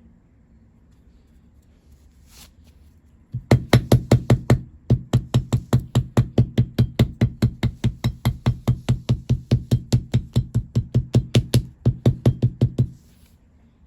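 Rapid, evenly spaced knocks, about four to five a second with a low thud in each, starting about three seconds in and running for about nine seconds with one short break near the start.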